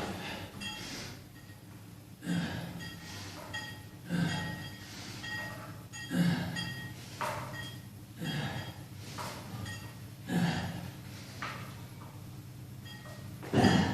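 A person breathing hard during a weightlifting set: a forceful breath or effort sound about every two seconds, in rhythm with the repetitions.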